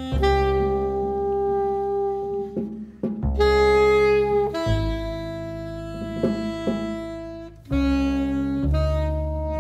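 Jazz ensemble playing: saxophones and brass hold long sustained chords that change every one to three seconds, over double bass, with a few drum hits.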